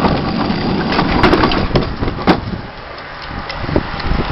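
A vehicle's run: loud rumbling, rushing noise with scattered knocks and clatter, easing off for a moment about two and a half seconds in before building again.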